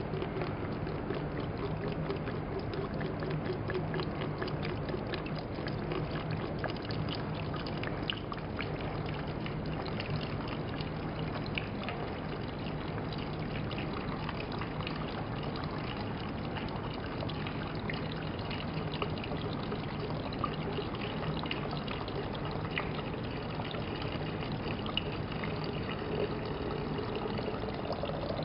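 Steam mop running: a steady hiss of water and steam with a low hum and scattered crackles throughout.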